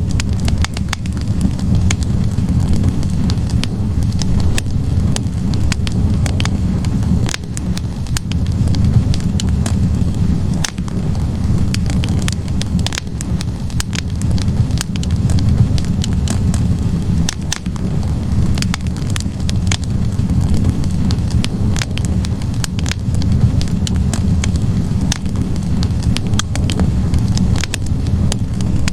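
Wood logs burning in a fireplace: a steady low rumble of the flames with frequent irregular crackles and pops from the wood.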